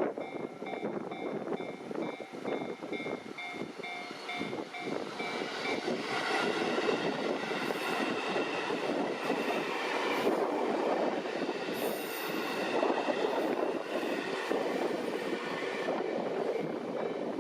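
Japanese level-crossing warning bell ringing as a rapid repeating electronic ding. From about six seconds in, a train passes over the crossing and its rumble and wheel noise become the loudest sound, with the bell still going faintly underneath.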